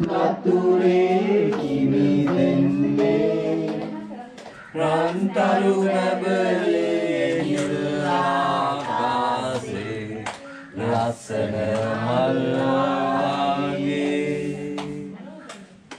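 A group of people singing a song together without accompaniment, several voices holding and gliding notes, with short pauses between phrases about four and a half seconds in and again near eleven seconds.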